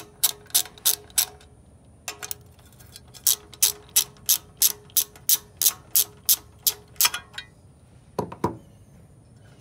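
Hand ratchet with a 7/16 socket clicking in quick back-strokes, about three clicks a second, as it undoes the nuts on a Briggs and Stratton engine's inner air cleaner housing. The clicks come in runs with pauses between. Two duller knocks follow near the end.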